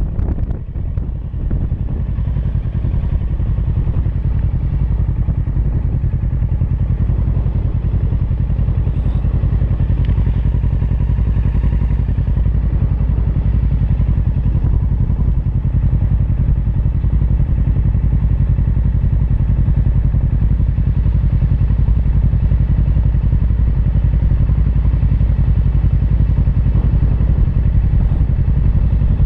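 Motorcycle engine idling with a steady low rumble, close to the microphone.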